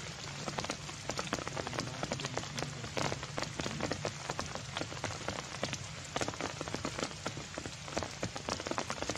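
Heavy rain falling steadily, a continuous hiss crowded with many sharp, close drop hits.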